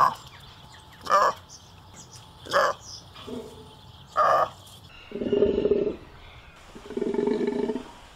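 Golden takin calling: four short, sharp calls about a second and a half apart, then three longer, lower calls of about a second each.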